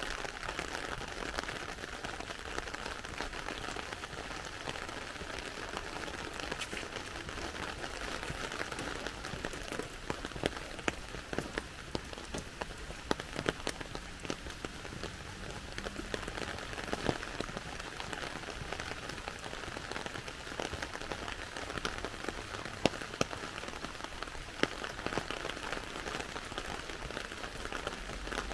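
Rain falling on a wet street: a steady hiss with many sharp drop hits scattered through it.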